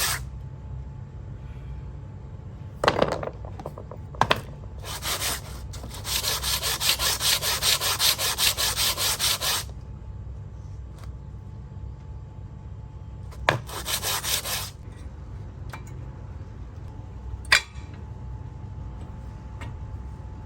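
Brake parts being sanded or scraped by hand in quick back-and-forth strokes, about four a second, in several separate spells with the longest in the middle, plus a few sharp clicks; a low steady hum runs underneath.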